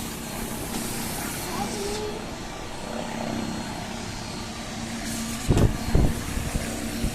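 Steady motor drone with a faint constant tone. Two loud knocks come about half a second apart near the end.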